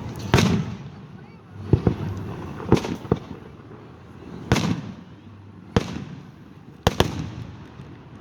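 Fireworks going off: a string of about nine sharp bangs in eight seconds, some coming in quick pairs.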